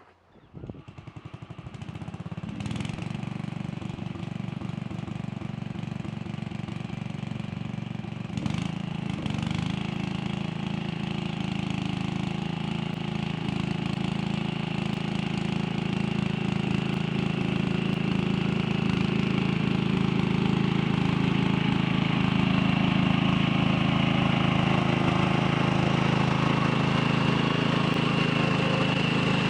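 An engine starts and runs steadily, coming up over the first couple of seconds and growing somewhat louder about eight seconds in.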